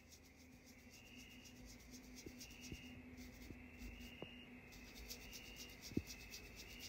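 Faint scratching of a bristle brush mixing oil paint on a glass palette, in repeated back-and-forth strokes, with a few tiny taps.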